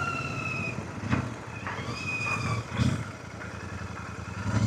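Royal Enfield Super Meteor 650's parallel-twin engine running at low revs as the motorcycle rolls over a dirt gravel track, with a couple of short knocks about one and three seconds in.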